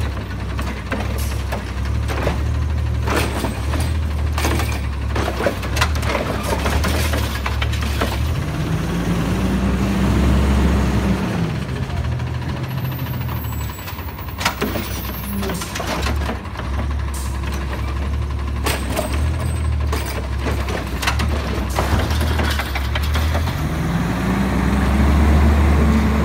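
Natural-gas garbage truck engine running with a steady low hum, revving up and back down a third of the way through and rising again near the end as the truck pulls forward. Scattered knocks and clanks run throughout.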